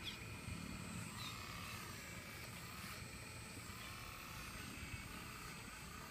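Machine engine running steadily: a low rumble with a faint higher whine over it, and two brief high chirps in the first second or so.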